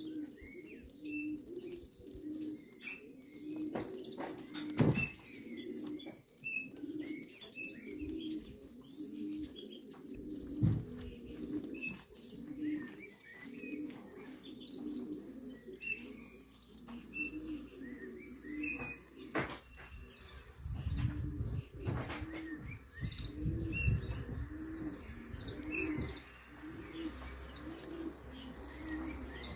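Racing pigeons cooing, a low throaty coo repeating about once a second, with higher chirps mixed in. A few sharp knocks or wing claps stand out, the loudest about five and eleven seconds in.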